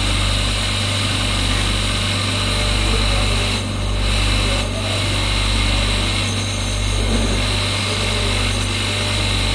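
Electric motor of a stone-grinding wheel running steadily with a low, even hum.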